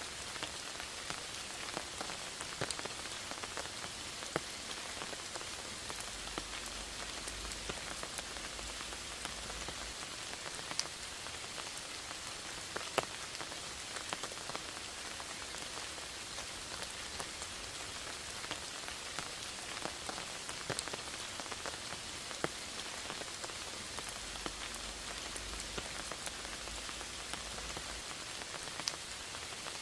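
Steady rain falling in a forest: an even hiss, with many individual drops ticking sharply on leaves and surfaces.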